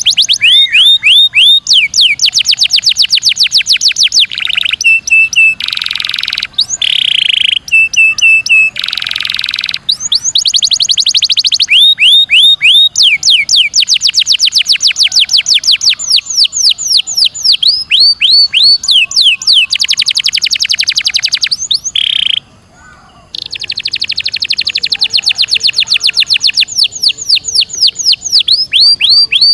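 Domestic canary in full continuous song, long rolling trills of rapid repeated downward-sweeping notes. A few short held whistled notes break in, and there is a brief pause about two-thirds of the way through.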